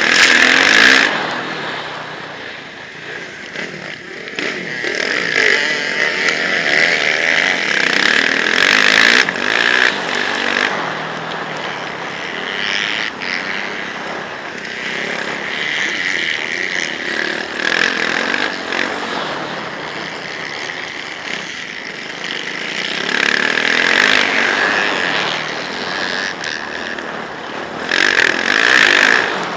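Motocross bike engine running hard under the rider, surging and easing with the throttle through the track's straights and corners, heard from a helmet-mounted camera. It is loudest just after the start, around a third of the way in, and twice near the end.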